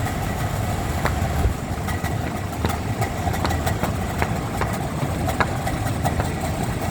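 A vehicle running with a steady low rumble and scattered sharp clicks.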